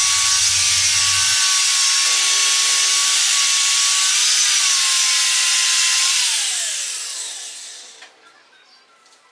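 Angle grinder with an abrasive disc cutting steel: a loud, steady high whine over hiss, whose pitch sags briefly about four seconds in as the disc bites. About six seconds in the grinder is switched off and the whine falls away as the disc spins down.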